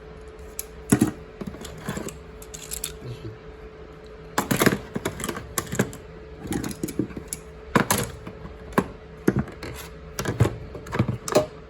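Steel pliers clinking and clacking as they are handled and set down among other tools in a toolbox drawer: a run of irregular sharp metal clicks, busier in spells, over a faint steady hum.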